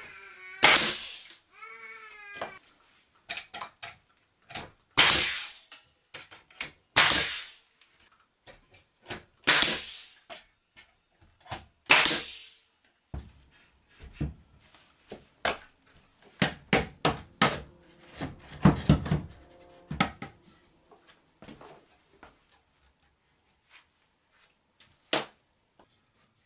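Pneumatic nail gun firing into a 2x4 wooden frame: five loud, sharp shots a couple of seconds apart, then a cluster of smaller knocks and clatter of lumber being handled, and one more sharp knock near the end.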